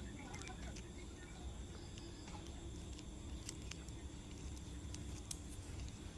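Faint outdoor ambience with a steady high insect drone, broken by a few soft clicks.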